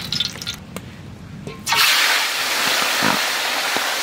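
Mustard oil pouring into a large iron wok, then about two seconds in a loud, steady sizzle starts suddenly as turmeric-coated fish pieces go into the hot oil and begin deep-frying.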